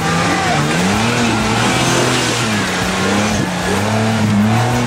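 Off-road 4x4 competition truck's engine revving up and down under load as it crawls up a steep rock-and-log step, its pitch rising and falling every second or so.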